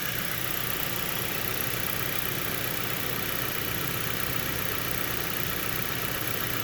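Steady mechanical running noise, an even hiss over a low hum, unchanging throughout, like a motor or engine running in the background.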